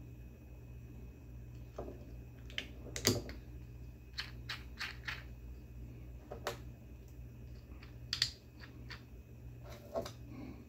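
Irregular clicks and taps of hard 3D-printed plastic parts being handled and fitted together: a bracket with press-on caps and rings. The loudest clicks come about three seconds in and about eight seconds in, over a low steady hum.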